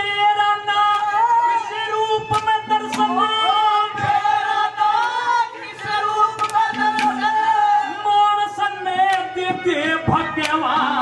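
Live Haryanvi ragni music: sustained melodic notes over scattered sharp drum strokes, with a man's singing voice coming in near the end.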